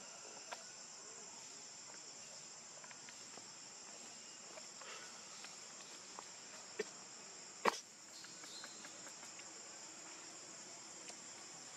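Steady high-pitched chorus of forest insects, with a few sharp clicks over it and one louder snap nearly eight seconds in.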